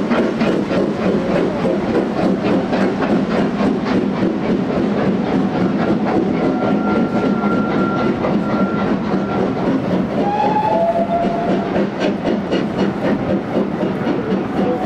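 Railway passenger coaches rolling past, their wheels clicking steadily over the rail joints. A faint thin high tone sounds midway, and about ten seconds in two short, slightly falling whistle-like notes are heard.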